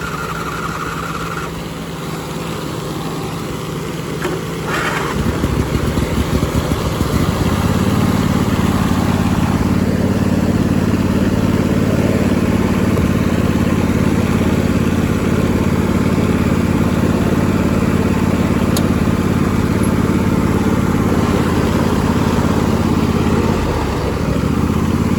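Old Craftsman lawn tractor engine running. About five seconds in it speeds up and runs steadily louder, dipping briefly near the end.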